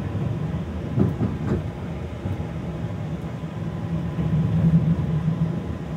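Izukyu 2100 series electric train running, heard from inside the passenger car: a steady low rumble of wheels and running gear with a faint low hum. Two knocks from the rail joints come about a second in, and the hum swells slightly near the end.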